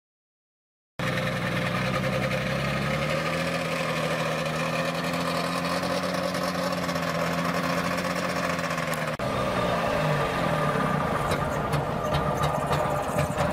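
Trabant's two-stroke engine running steadily as the car pulls away, its exhaust smoking heavily. About nine seconds in the engine note drops and settles to a rougher idle, with a few light clicks near the end.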